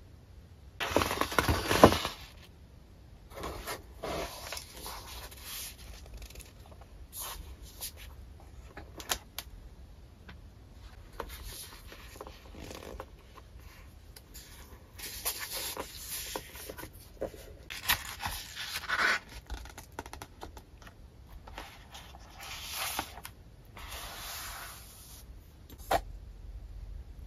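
Paper and cardboard being handled in bursts of scraping, sliding and rustling, loudest about one to two seconds in, as a boxed journal set is unpacked and the journal's cover and pages are opened. A sharp click sounds near the end.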